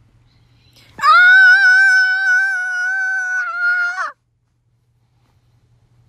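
A kitten giving one long, drawn-out meow that holds an almost level, high pitch for about three seconds. It starts about a second in and cuts off abruptly.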